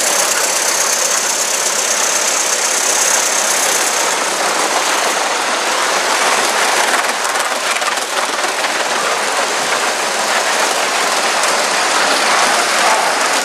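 Live-steam model locomotive in Southern Pacific Daylight livery running with its train of passenger cars: a steady hiss and rattle of wheels on the track, with many fine clicks throughout.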